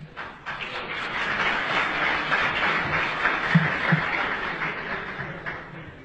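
Audience applauding, swelling about half a second in and fading near the end.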